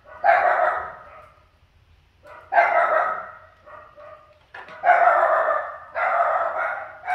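Young macaques squealing, four harsh calls of about a second each, each starting sharply and fading.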